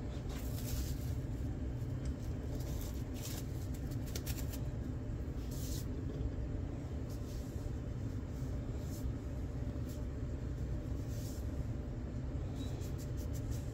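Plastic wrap crinkling in short, scattered bursts as it is peeled off a new cast-iron bench vise, over a steady low hum.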